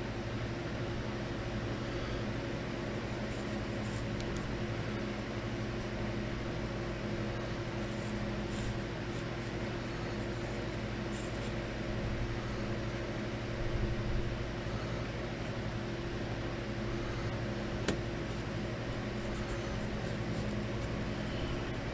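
Steady machine hum with several even tones under a light hiss, and a faint click about eighteen seconds in.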